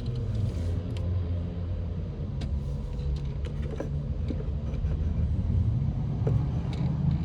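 Turbodiesel V6 engine of a Ram 1500 EcoDiesel idling with a steady low rumble and a few light clicks.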